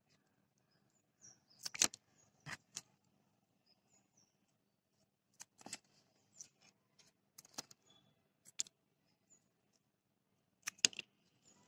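Kitchen scissors snipping through jointed horsetail (water bamboo) stems, cutting them at a slant beside a node to take cuttings: a scattering of short, sharp snips and clicks, the loudest near the end.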